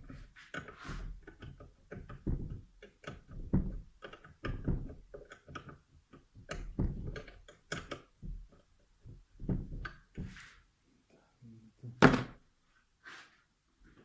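Irregular knocks, thunks and clatter of hand tools and metal scooter parts being handled during a variator disassembly, with one sharp, louder knock near the end.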